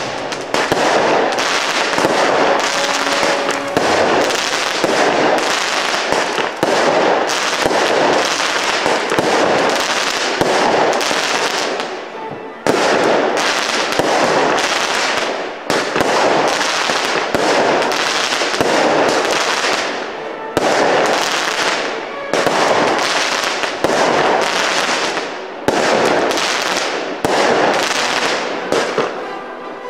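Aerial fireworks shots firing in quick succession, with bursts and crackle, dropping off briefly about twelve seconds in and again a few seconds later.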